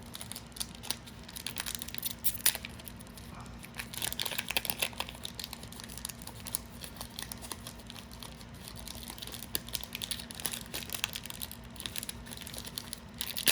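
Foil booster-pack wrapper crinkling and trading cards being handled, a string of short, irregular crackles.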